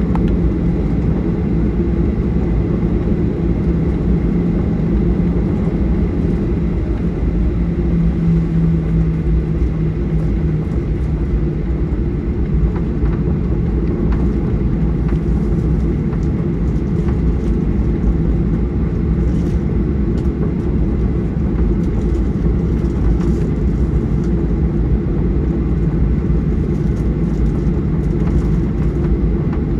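Steady cabin noise inside a Boeing 737-800 airliner: the low rumble of its CFM56-7B turbofan engines and airflow. A low hum runs under it and fades out about a third of the way in.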